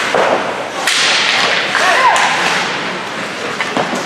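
Ice hockey in play: skate blades scraping and hissing across the ice, with a few sharp clacks of hockey sticks.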